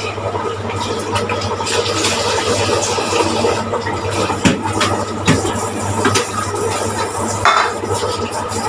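Tap water running into a kitchen sink while dishes are washed, with a few clinks and knocks of crockery and utensils over a steady low hum.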